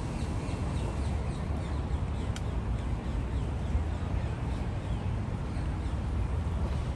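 Open-air ambience: a steady low rumble with faint bird chirps scattered through it, and one sharp click a little over two seconds in.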